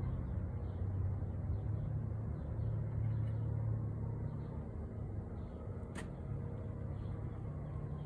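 A steady low engine rumble that runs unbroken, with a single sharp click about six seconds in.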